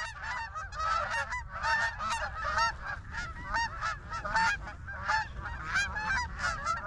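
A flock of geese honking as they circle and come in to land, many overlapping calls at once in a continuous chorus.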